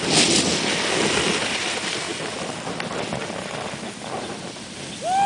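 Rushing noise of wind on the microphone and of sliding over packed snow while moving down a ski slope, loudest in the first second and easing off. A shout starts right at the end.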